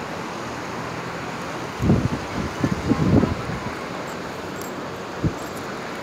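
Wind buffeting the phone microphone over a steady wash of seaside surf, with strong gusts about two to three seconds in and a single short thump near the end.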